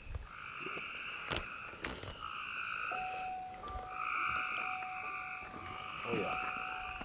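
A chorus of frogs calling at night: trilled calls about a second long, overlapping and answering one another without a break.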